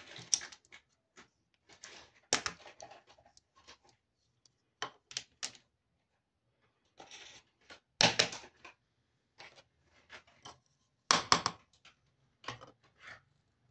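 Small plastic toy kitchen pieces clicking and clattering as they are handled and set down on a tabletop. The clicks are irregular, with louder knocks about two, eight and eleven seconds in.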